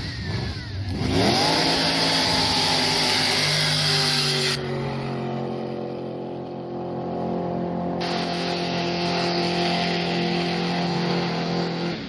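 Racing jet boat engine revving up about a second in, then running flat out with a steady high-revving drone as the boat makes its run.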